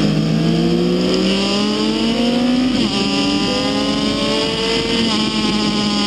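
Racing motorcycle engine heard from onboard, accelerating hard: its pitch climbs steadily and drops at two upshifts, about three seconds in and again about five seconds in.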